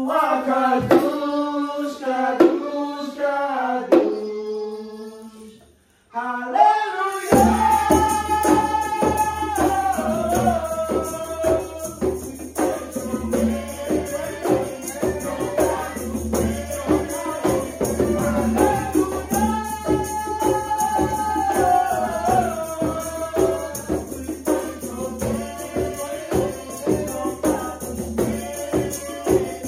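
Group worship singing of a chant, accompanied by drum strokes. It breaks off about six seconds in, then the music resumes fuller, with singing over a steady shaken tambourine and drum rhythm.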